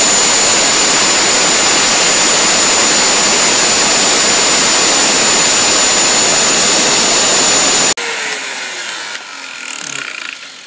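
CNC router spindle running with a loud, steady high whine as it completes a cut in plastic. It switches off about eight seconds in and winds down with a falling tone.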